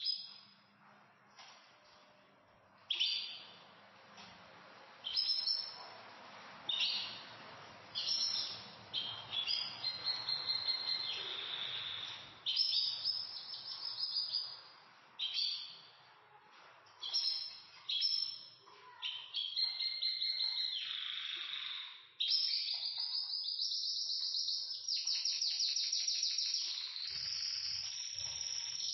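Pet canaries singing. First come separate bright chirps and short phrases every second or two, then from about two-thirds through a continuous song that includes a fast rattling trill.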